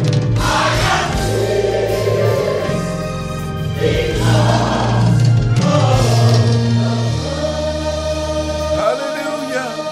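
Gospel music: a choir singing over held chords and low sustained bass notes. The lowest notes change about seven seconds in and drop out near the end.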